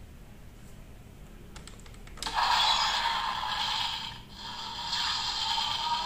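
A few plastic clicks as the DX Powered Builder Buckle is worked on the toy Desire Driver belt. About two seconds in, the belt's electronic transformation sound effects start playing loudly from its small built-in speaker.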